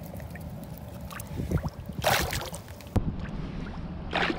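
Two short splashes of water about two seconds apart, with a sharp click between them.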